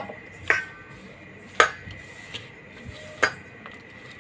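Stainless steel mixing bowl clinking sharply four times, each with a brief metallic ring, as flour and water are mixed by hand into dough.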